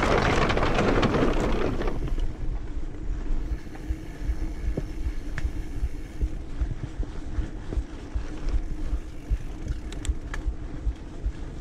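Motorcycle engine running steadily at low revs on a rough dirt trail, with wind buffeting the microphone and low bumps throughout. A loud rush of wind noise fills the first two seconds.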